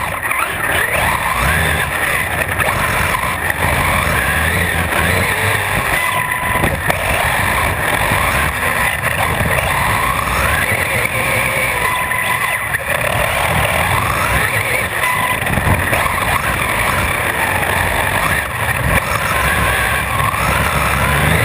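On-board sound of an electric RC car's brushless motor and drivetrain at speed: a whine that repeatedly rises and falls in pitch as the throttle is worked through corners, over a steady low rumble.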